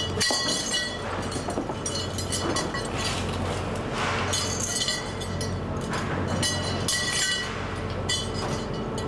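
Steady low hum of a fishing boat's engine running, under repeated clattering and clinking of plastic fish boxes being handled on deck.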